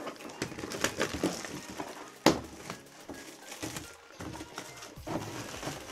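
Clear plastic wrap being peeled off a cardboard shoebox and crumpled in the hand, giving irregular crinkling and crackling. There is one sharp knock a little over two seconds in.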